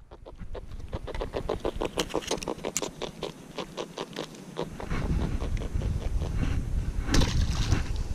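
A small silver fish held in the hand while the hook is worked out of its mouth makes a rapid, even series of croaking grunts, about eight a second. After about four and a half seconds the grunting gives way to wind and handling noise, with one sharp sound near the end.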